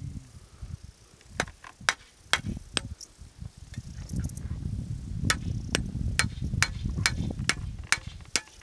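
Small hammer peening the edge of a scythe blade: sharp metallic taps, four about a second and a half in, then after a pause a steady run of about two taps a second.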